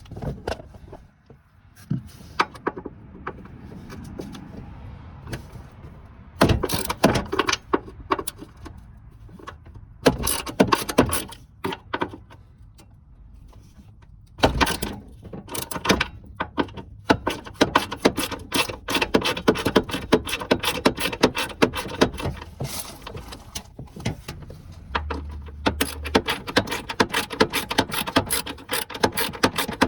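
Hand ratchet with a 10 mm socket clicking as fender bracket bolts are loosened. A few short runs of clicking come in the first half, then near-continuous rapid clicking from about halfway.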